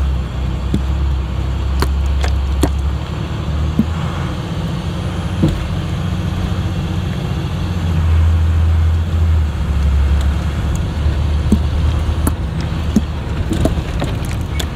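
Converted school bus driving slowly over a rough dirt road: a steady low engine and road rumble, with scattered sharp knocks and rattles as it goes over bumps.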